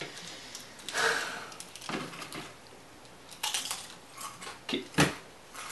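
Hard plastic clicks and rattles of a Transformers Terrorcon Cliffjumper figure's parts being twisted and snapped into place while it is transformed by hand, with a sharp click about five seconds in.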